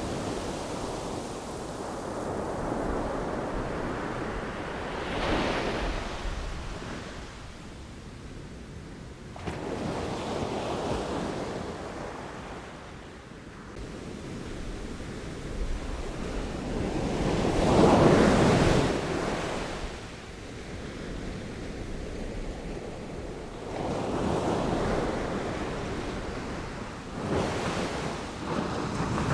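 Sea waves breaking and washing in, coming in slow surges every few seconds, with the biggest wave about two-thirds of the way through.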